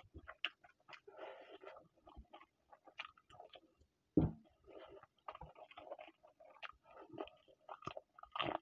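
A man chewing a mouthful of rice and chicken curry eaten by hand, close to the microphone: a run of short wet mouth clicks and chewing noises, with a single louder thump about four seconds in.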